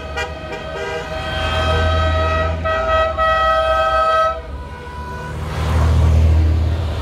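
Car horns on passing Mini cars toot a few short times, then one horn is held for about three seconds over the low rumble of car engines. Near the end the engine sound swells as a car drives past.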